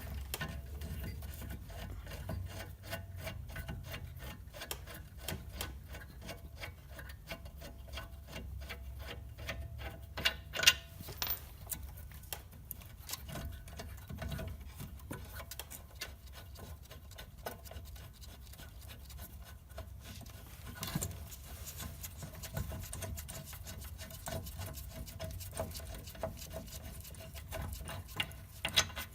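Hand ratchet clicking rapidly as it backs out the brake caliper mounting bracket bolts, with a couple of louder metal knocks along the way.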